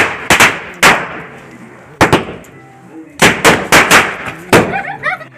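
Firecrackers going off in sharp, loud bangs, irregular and bunched in quick clusters, about ten in all.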